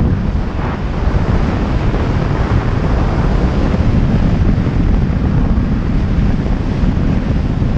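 Steady, loud wind buffeting on the microphone of a camera riding on a moving motorcycle, with the motorcycle's running and road noise blended underneath.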